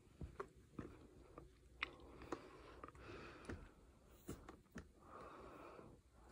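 Faint wet mouth clicks and smacks of a baby chewing a mouthful of bread.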